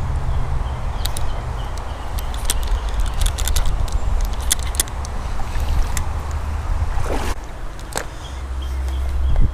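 Flowing river water under a low rumble, with scattered sharp clicks and knocks and a short whoosh about seven seconds in.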